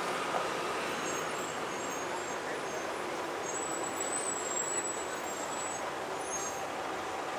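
Steady airport apron noise of jet engines running at idle, an even rushing hum, with a thin high whine for a second or two about halfway through.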